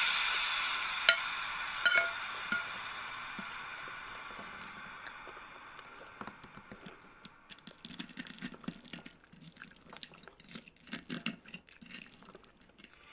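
Close-up chewing of crispy air-fried fish and avocado salad, a run of irregular moist crunches that fills the second half. A metal spoon clinks on the plate about one and two seconds in, and a background hiss fades away over the first several seconds.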